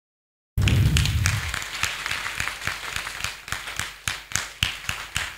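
Group of people applauding. It starts abruptly about half a second in, dense at first, then thins out to a few scattered hand claps.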